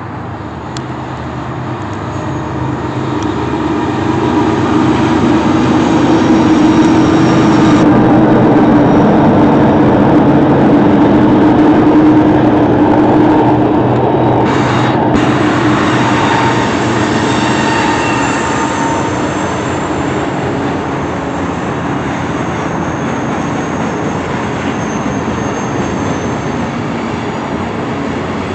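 BNSF coal train passing overhead. The diesel locomotives' engine hum grows louder over the first few seconds and is loudest for several seconds. After that the coal hopper cars roll by with steady wheel-on-rail noise and faint high wheel squeal.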